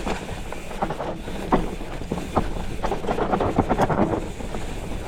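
Mountain bike riding down a trail, with wind buffeting the microphone and a quick, irregular clatter of knocks and rattles from the bike over rough ground, getting busier in the second half.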